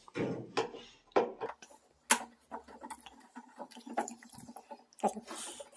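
Irregular clicks and knocks as a screwdriver and hands work against the plastic tub ring and frame of a top-load washing machine, the loudest about two seconds in.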